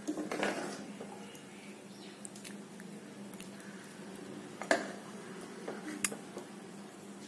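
Thick chicken gravy being scooped from an aluminium pressure cooker onto a plate: a soft wet squish in the first second, then light clinks of utensil and plate against the cooker, two sharp ones near the middle and later on.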